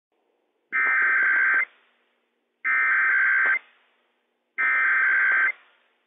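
NOAA Weather Radio SAME header opening a Required Weekly Test: three identical bursts of digital data tones, each just under a second long and about a second apart, each trailing off briefly.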